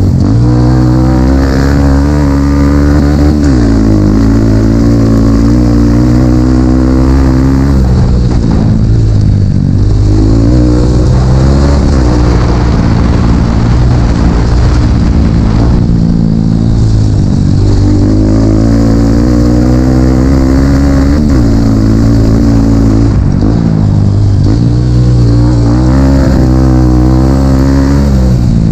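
Dirt bike engine running loud under the rider, its pitch rising and falling again and again with throttle and gear changes.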